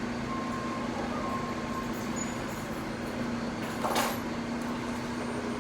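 Steady low hum with a background hiss, and one brief sharp clack about four seconds in.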